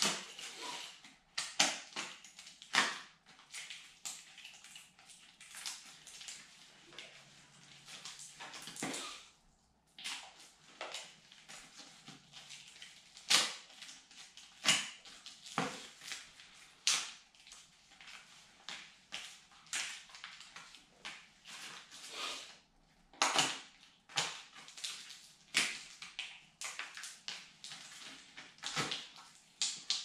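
Small plastic hardware bag crinkling and rustling as it is handled and opened, in many short, irregular crackles.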